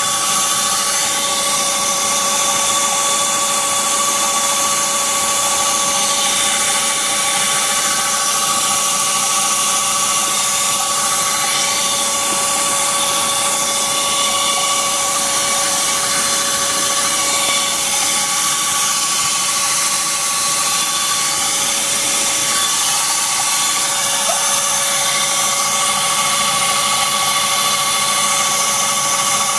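BMW Z3 1.9's four-cylinder engine running with a steady high-pitched squeal over a loud hiss, holding constant pitch throughout. The squeal has persisted despite new air-conditioner and fan belt tensioners and new brake pads and rotors.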